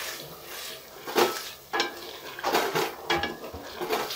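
A spoon stirring chopped pumpkin into masala in a metal cooking pot, knocking and scraping against the side of the pot about six times.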